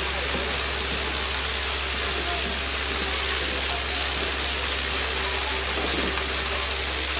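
Vibratory bowl feeder running: a steady low hum from its vibrating drive under a continuous dense rattle of red plastic bottle caps shuffling along the stainless steel bowl's spiral track.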